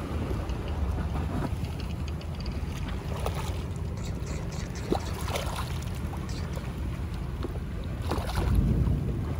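Wind on the microphone and water sloshing against an inflatable boat, with short splashes from a large hooked opaleye thrashing at the surface, loudest near the end.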